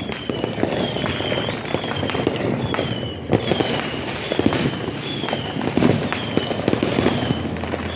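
Fireworks going off all around in many quick bangs and crackles. A short, high, falling chirp repeats about every two-thirds of a second throughout.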